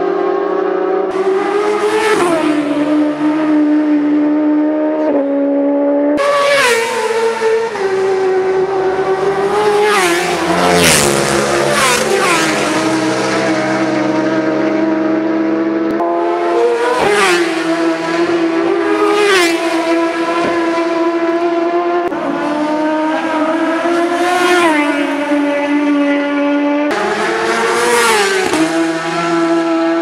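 Racing motorcycles passing at full speed one after another, engines revving hard, each engine note dropping sharply in pitch as the bike goes by. Several fly-bys follow in quick succession.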